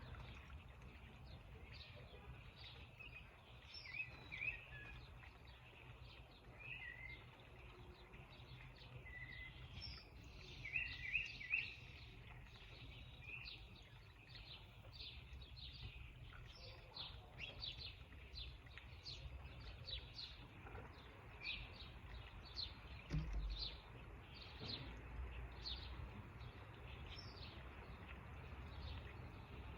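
Several small birds chirping and calling: many short, high notes, some in quick clusters, growing more frequent in the second half. A steady low rumble lies underneath, with a brief low thump about two-thirds of the way through.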